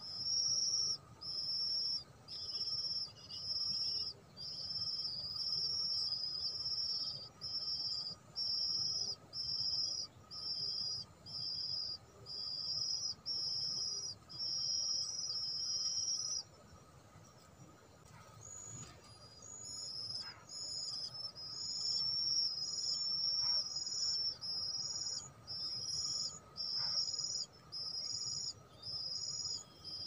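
An insect chirping in steady, high-pitched pulses, a little over one a second. It stops for a couple of seconds past the middle, then starts again.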